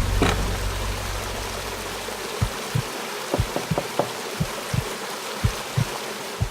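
Crickets chirping in a dense, steady night chorus that sounds like an even hiss. A low rumble fades out over the first two seconds, and soft low thumps come every half second or so from about two and a half seconds in.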